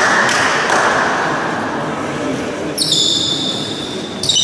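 A basketball bouncing on a sports-hall floor, two knocks in the first second, over a hum of voices. About three seconds in comes a sharp high-pitched squeal that slides down and holds, and another starts near the end.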